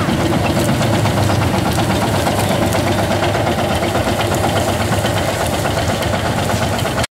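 Farm tractor engine running steadily under load while pulling a tined ground implement through dry weeds and soil. The sound cuts off suddenly near the end.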